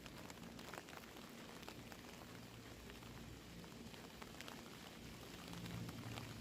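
Rain falling, an even hiss dotted with the ticks of single drops landing close by. A low hum comes in under it and grows louder near the end.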